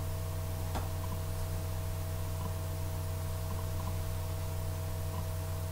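Steady electrical hum with a faint hiss, made of several fixed tones, and one faint click about a second in.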